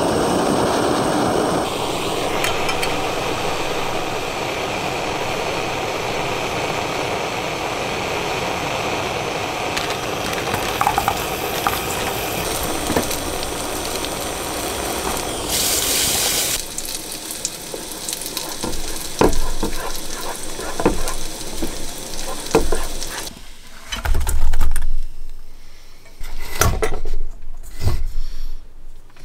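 A canister gas camping stove lit with a match, its burner hissing steadily while meatballs sizzle in a frying pan. After about 16 seconds the hiss gives way to scattered knocks and clinks of utensils against pan and pot, a few of them loud.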